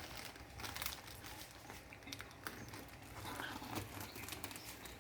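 Packaging being handled during an unboxing: quiet crinkling and rustling with scattered small clicks and taps.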